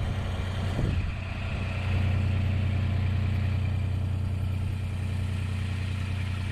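Utility vehicle's engine idling steadily, with a brief knock or clatter about a second in.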